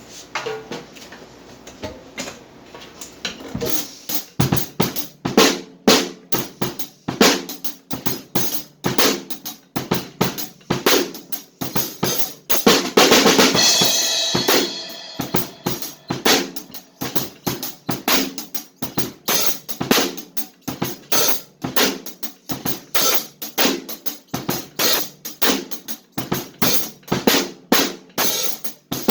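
Drum kit playing a steady beat of sharp, evenly spaced hits. A few sparse strokes come first, the beat settles in about four seconds in, and a cymbal wash rings out around thirteen seconds in.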